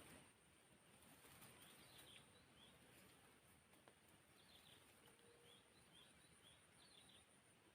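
Near silence: faint outdoor ambience with a thin steady high tone and a few soft, short bird chirps now and then.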